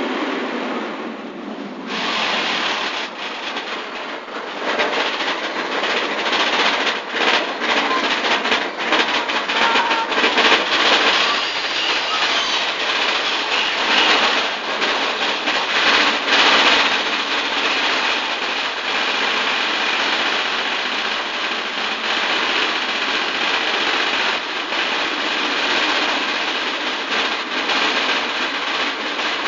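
Big Thunder Mountain Railroad mine-train coaster rattling and clattering along its track, heard from on board, with a dense run of rapid clicks and knocks.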